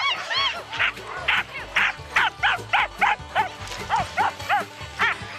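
Harnessed sled dogs barking and yelping in a rapid, unbroken string of short high barks, about three a second, as they strain eagerly to run. Background music plays underneath.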